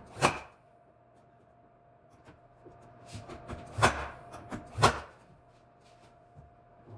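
Three sharp knocks, one near the start and two close together about four and five seconds in, with lighter clicks and taps between them over a faint steady hum.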